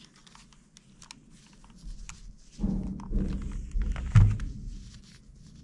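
Handling noise from a speaker wire, capacitor and soldering gun on a carpeted workbench. There are scattered light clicks, then about halfway through a short stretch of low, rumbling knocks with one sharper thump.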